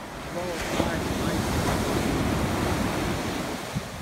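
Ocean surf breaking on a sandy beach: a wave swells up about a third of a second in and washes up the sand, with wind rumbling on the microphone.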